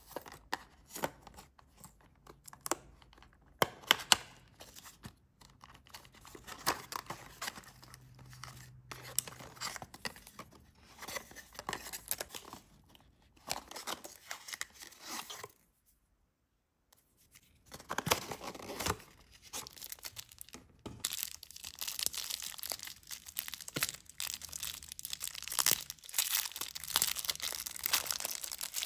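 Hands opening snack packaging: a cardboard box torn open and handled, with sharp clicks and tearing. After a brief silence about halfway, a clear plastic candy wrapper crinkles and tears, denser toward the end.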